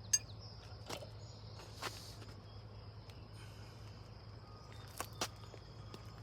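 A few sharp clicks and knocks from things being handled, the loudest just at the start and a quick pair about five seconds in, over a steady high-pitched whine and a low hum.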